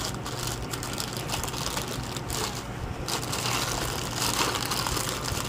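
Rustling and crinkling of a small bag being handled and turned over in the hands, busier in the second half, over a faint steady low hum.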